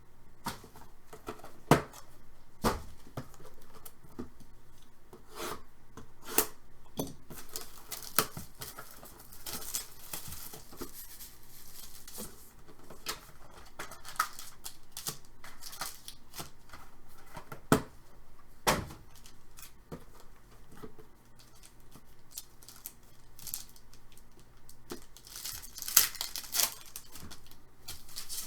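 Trading card packaging being torn open and crinkled, with sharp clicks and taps from cards and packs being handled. Two longer stretches of rustling tearing come around a third of the way in and near the end.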